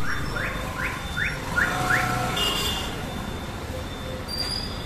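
Bajaj Pulsar NS160's single-cylinder engine running low as the motorcycle is ridden in, over street traffic. A short rising chirp repeats about three times a second over the first two seconds.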